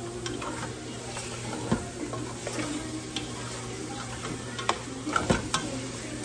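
Wooden spoon stirring pork hock pieces frying in a pot, with a light sizzle and scattered knocks of the spoon against the pot. The knocks are loudest in a cluster about five seconds in. A steady low hum runs underneath.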